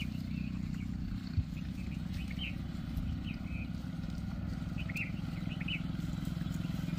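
Steady low hum of a motor vehicle engine, with a few short high chirps over it.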